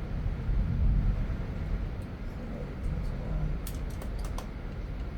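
Hands handling a vintage Kenmore sewing machine while threading it, with a quick cluster of small sharp clicks about four seconds in, over a steady low rumble.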